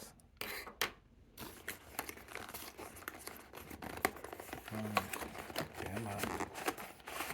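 Packaging being handled and opened by hand: rustling and crinkling with many sharp clicks and taps, including a brief low mumble partway through.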